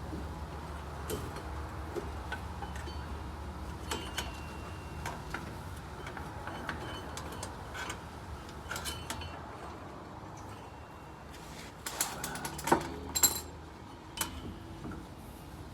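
Scattered metallic clinks and taps of hand tools and metal parts being handled while working on a car's rear axle and differential, over a low steady hum; a few sharper, louder clanks come near the end.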